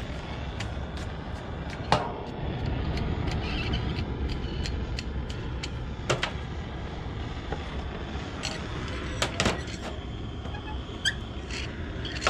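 Steady roar of a gas torch heating a copper soldering iron, with scattered sharp metallic clicks and taps, the loudest about two seconds in, about six seconds in and twice around nine seconds.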